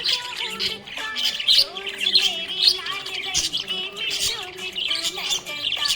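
Budgerigars chirping and warbling in a rapid, unbroken stream of short high notes.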